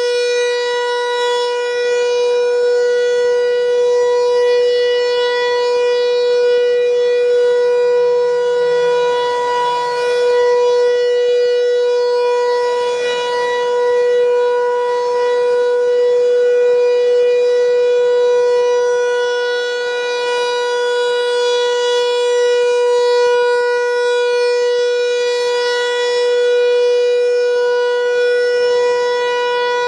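Federal Signal 508 electromechanical rotating outdoor warning siren sounding its steady alert tone at full speed during a test. It holds one unwavering pitch rich in overtones, and it swells and eases gently every several seconds as the rotating horn sweeps past.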